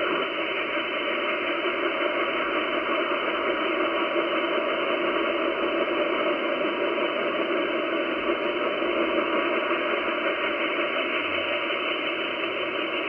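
Steady hiss of band noise from an Icom IC-756PRO transceiver's speaker, receiving upper sideband on the 10-metre band while the dial is turned slowly; the hiss stops sharply above about 3 kHz at the receive filter's edge.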